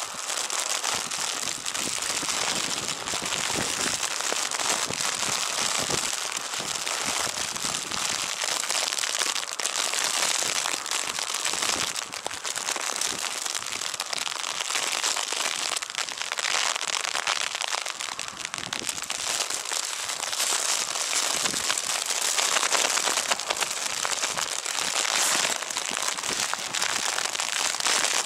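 Wind-driven wet snow pelting down in a snowstorm, a dense crackling patter on the ground and the microphone.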